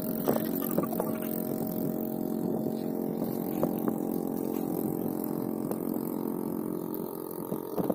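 A motor running steadily, heard as an even drone that eases slightly near the end, with scattered sharp crackles on top.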